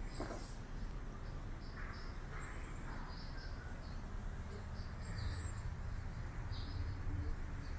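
Small birds chirping in short, repeated notes, over a low rumble that grows a little louder in the last few seconds.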